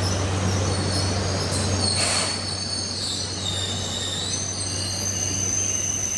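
TER regional multiple unit running slowly past the platform, its wheels squealing in high, wavering tones over a steady low rumble, with a short hiss about two seconds in.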